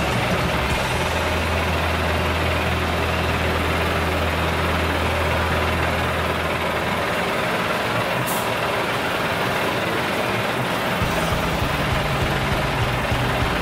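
Heavy diesel truck engine idling, a steady low hum whose pitch changes about halfway through.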